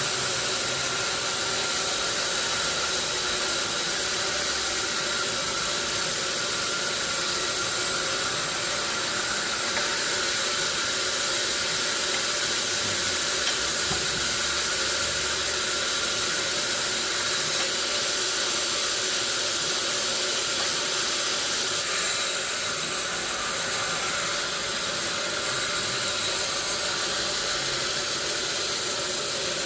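Sawmill saw running steadily, a continuous hiss with a faint steady whine.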